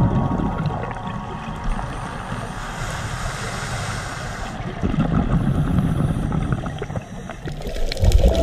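Underwater gurgling and bubbling from scuba exhaust bubbles over a low rumble, rising louder near the end.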